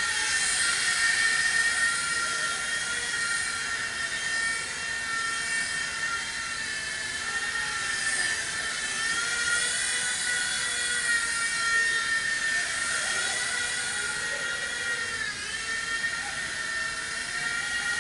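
WL-Toys V911 micro RC helicopter in flight: the high-pitched whine of its small electric motors and rotor, with the pitch wavering gently up and down. The pitch dips briefly and recovers about fifteen seconds in.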